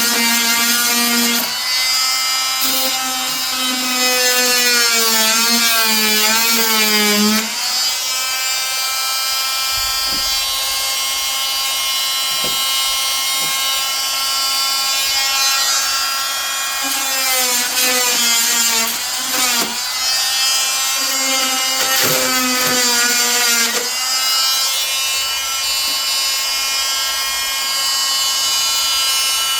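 Oscillating multi-tool running continuously as it cuts into wood, a buzzing whine whose pitch wavers and dips when the blade bites harder, around two to seven seconds in and again from about seventeen to twenty-four seconds.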